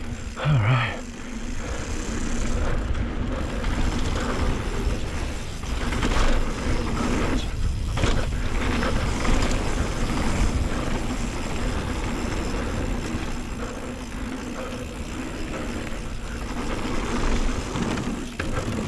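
Scott Ransom 29er full-suspension mountain bike chattering and rattling at speed over a rough, choppy downhill trail, with wind rushing over a chin-mounted action camera. There are a few sharper knocks from hits about six to eight seconds in.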